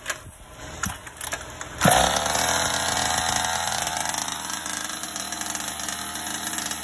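Small two-stroke engine of a gas-powered RC car starting up: a few clicks, then it catches about two seconds in and runs steadily at idle.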